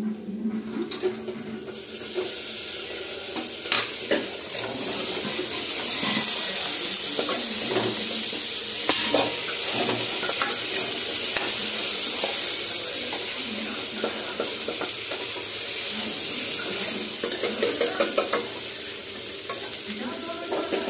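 Boiled chickpeas and potato pieces sizzling in hot oil in a kadai. The steady sizzle swells suddenly about two seconds in, as they go into the pan. A steel spoon scrapes and knocks against the pan as they are stirred and fried.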